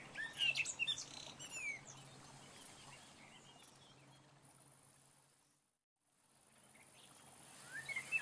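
Birdsong ambience of short chirping calls. It fades out to silence about two-thirds of the way through, then fades back in with a burst of chirps near the end.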